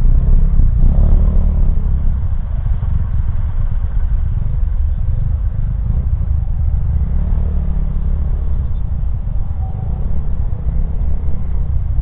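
Yamaha motor scooter riding through stop-and-go city traffic: its engine running under a steady low rumble of wind on the handlebar microphone, with the engines of surrounding cars and motorcycles mixed in.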